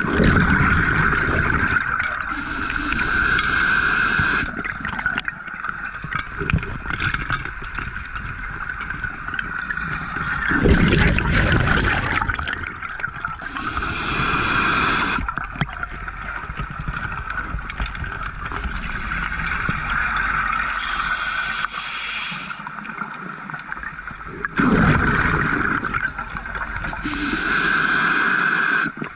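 Scuba diver breathing through a regulator underwater: several breaths, with short hissing inhalations and gurgling, rumbling surges of exhaled bubbles, over a steady hum.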